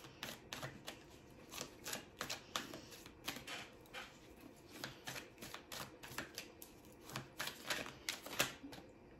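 A deck of tarot cards shuffled hand over hand: an irregular run of crisp card slaps and clicks, two or three a second, that eases off near the end.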